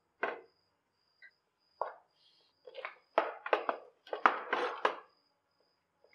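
A glass pan lid is lifted off just after the start, then a spatula stirs and scrapes thick, cooked rava pongal (semolina and moong dal) in a nonstick pan. The stirring comes as a run of quick, uneven strokes from about two to five seconds in.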